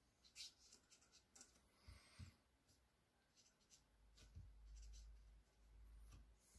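Faint scratching of a black pen drawing short, quick strokes on paper, in separate brief scrapes, with a faint low rumble underneath from about halfway through.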